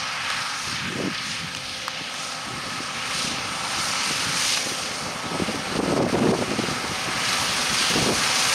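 New Holland T7.245 tractor's six-cylinder engine working under load as it drives a Shelbourne Reynolds PowerSpread Pro spreader, whose rotor flings slurry out to the side in a steady, noisy spray.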